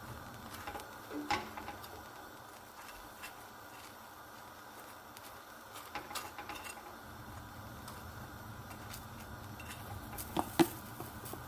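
Paratha frying in plant-based butter on a hot tawa griddle: a steady sizzle with scattered small crackles and pops, and a few sharper clicks near the end.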